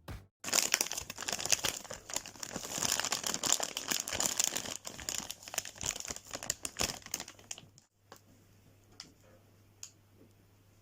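Crinkly plastic packaging rustling and crackling as it is handled and opened, for about seven seconds, then stopping; a few faint clicks follow near the end.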